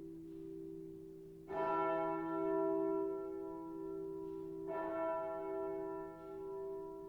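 Church bells of St. Andreas ringing in a full peal. Two strikes fall about three seconds apart, each over the long, slowly fading hum of the strokes before.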